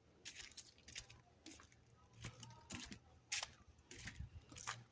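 Faint footsteps of a person walking: a string of soft, irregularly spaced scuffs and clicks.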